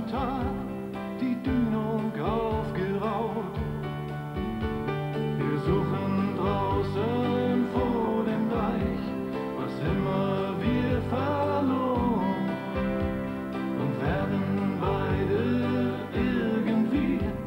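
German Schlager ballad: a man singing over band accompaniment.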